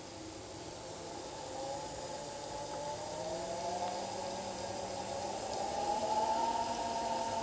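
A three-phase electric motor belt-driving a vintage Westinghouse DC generator armature, spinning slowly out of its housing: a steady whirring hum with a few tones that drift up slightly.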